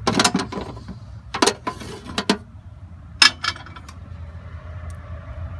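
Sharp metal clicks and clatter of an air conditioning compressor and its parts being handled, the loudest about three seconds in, over a steady low hum.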